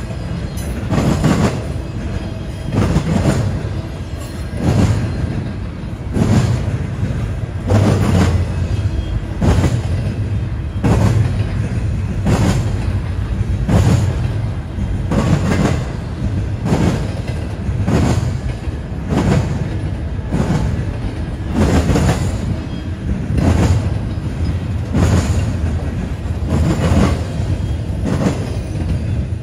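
Double-stack intermodal freight train rolling past: a steady low rumble from the cars, with the steel wheels clacking over the rails in an even rhythm, roughly once a second.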